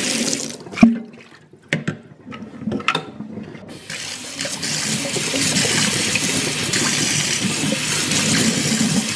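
A few sharp knocks in the first three seconds, the loudest about a second in, as the plastic drain pipe is handled in a stainless steel sink. From about four seconds in a kitchen faucet runs steadily, splashing into the sink over the drain strainer.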